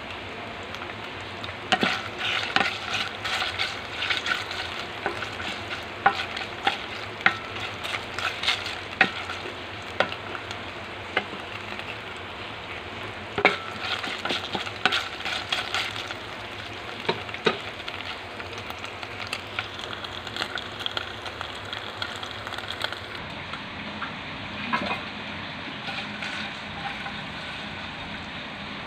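Beef tapa sizzling as it fries in oil in a stainless steel pan, with a spatula repeatedly scraping and clicking against the pan as the meat is stirred. The scraping is busiest in the first half and grows sparser later on.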